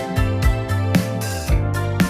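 Background music: a melodic instrumental track with plucked guitar-like notes over a steady beat.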